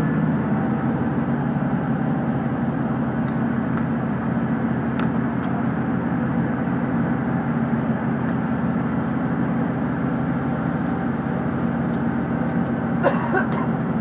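Route bus's diesel engine running, a steady low hum heard from inside the passenger cabin, with a brief sharper sound near the end.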